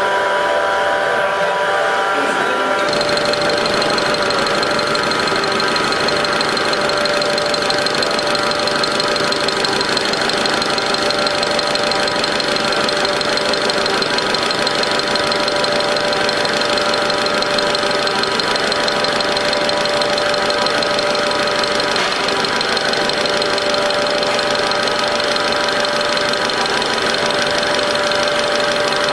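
Lathe interrupted-turning a hardened bearing sleeve with a CBN insert. From about three seconds in, the insert cuts steadily with a dense, rapid knocking as it strikes the interruptions each revolution, over a few held ringing tones.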